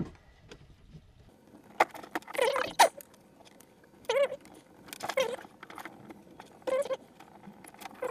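Clear plastic tubing squeaking and rubbing in a series of short squeaks, about half a dozen, as it is pulled off and pushed back onto the fittings of a home-made water-cooling loop.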